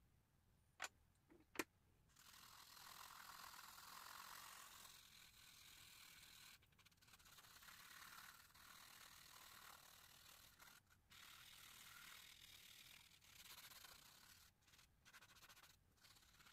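Charcoal pencil scratching and rubbing on drawing paper in faint, uneven strokes with short pauses, after two sharp clicks about a second in.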